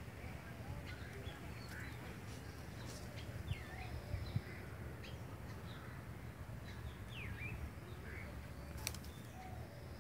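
Small birds calling on and off: short chirps and swooping whistled notes from several birds, over a low steady rumble. A sharp click near the end.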